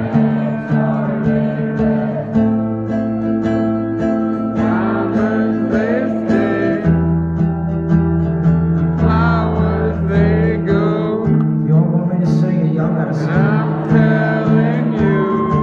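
Live band music with guitar playing over sustained low notes that change pitch a few times. It is the song's instrumental opening, with no lyrics sung yet.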